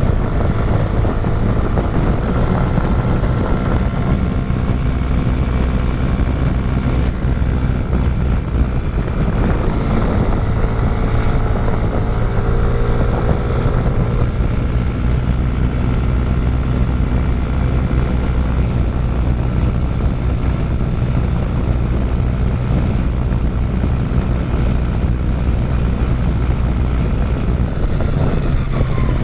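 Yamaha N-Max 125's single-cylinder four-stroke engine running steadily at cruising speed, with wind rush on the microphone. A higher engine note rises and falls briefly about ten seconds in.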